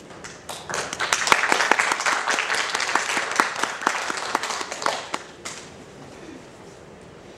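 Audience applauding, starting about half a second in and dying away about five seconds in.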